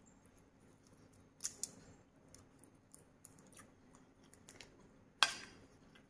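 Small clicks and crackles of a cooked prawn's shell being pulled apart by hand, with a sharp click about five seconds in.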